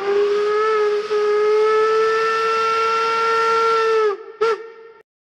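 Steam whistle blowing one long blast over a hiss of steam, dropping in pitch as it dies away, then one short toot about half a second later.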